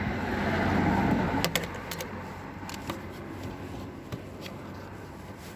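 A plastic hubcap being worked off a van's wheel: a scraping, rustling sound for about two seconds, then a few sharp clicks.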